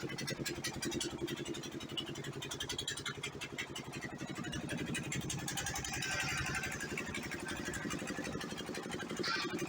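Diesel generator engine running steadily, with a fast, even beat.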